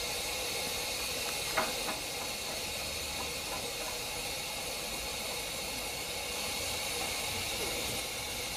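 Steady steam hissing from a Romney, Hythe & Dymchurch Railway 15-inch gauge steam locomotive standing on a turntable, with a brief squeak about a second and a half in.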